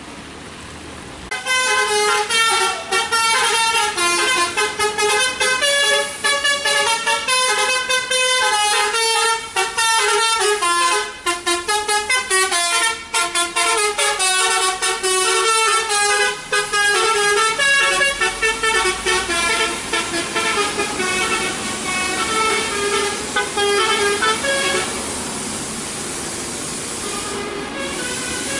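A coach's multi-tone musical air horn ('telolet' horn) playing a long, quick tune of changing notes, starting about a second in and stopping a few seconds before the end, after which only steady road noise remains.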